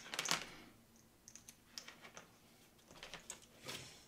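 Light, irregular clicks and short rustles of hands handling loose wire leads and a motor housing on a workbench.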